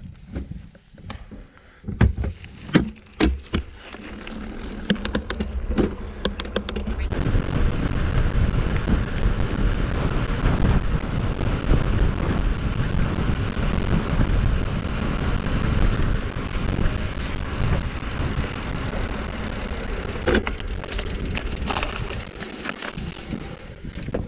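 Wind buffeting the microphone and tyres rolling on pavement while riding a bicycle along a road. The first seconds hold a few sharp knocks and rattles before the rushing noise builds, steadies, and eases off near the end.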